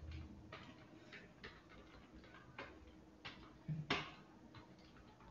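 Computer keyboard being typed on: scattered soft key clicks at an uneven pace, with one louder click about four seconds in.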